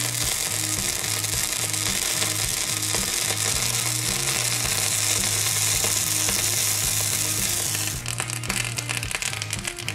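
Toothpaste sizzling on a red-hot metal ball, a loud steady hiss that cuts off suddenly about eight seconds in and turns to light crackling. Background music with a repeating bass line plays underneath.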